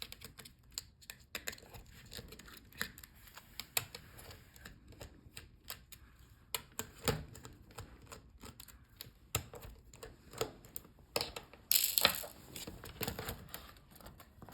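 Small clicks and taps of a screwdriver working the screws and plastic of a laptop palmrest as the touchpad is unscrewed and taken out, with a louder scraping rustle of plastic near the end.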